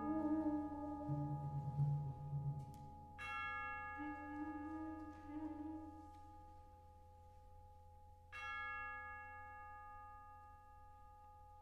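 Quiet passage of a fanfare band: two tubular-bell strokes, about three seconds in and again about eight seconds in, each ringing on and slowly dying away, over soft held low brass notes.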